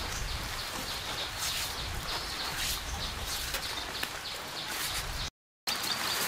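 Outdoor rural ambience: small birds chirping repeatedly over a steady hiss of light rain.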